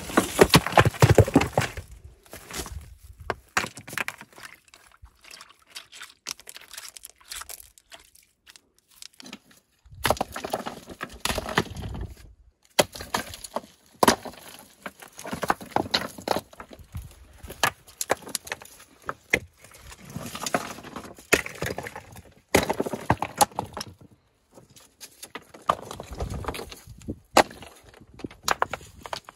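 Loose stones clattering, knocking and scraping together as they are shifted by hand, in irregular bursts of sharp knocks and crunches with a quieter stretch a few seconds in.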